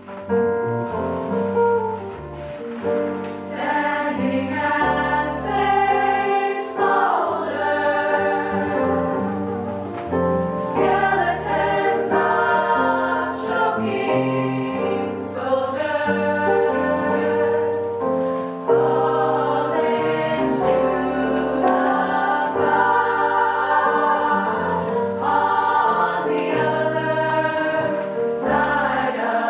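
A choir singing a song with words, several voices in harmony.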